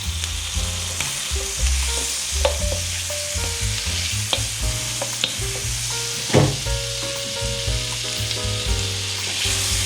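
Onions, garlic and parsley frying in butter in a wok: a steady sizzle, with a few sharp clicks of the spatula against the pan as it is stirred.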